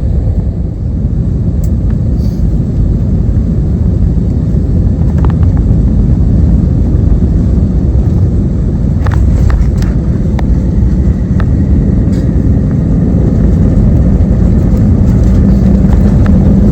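Steady, loud low rumble of a vehicle in motion, with a few faint clicks on top.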